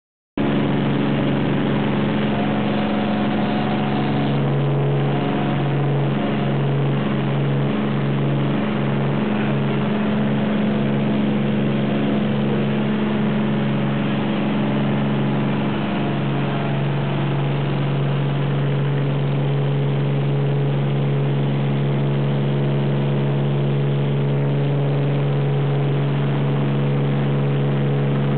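Light aircraft engine and propeller running at a steady, loud drone during takeoff.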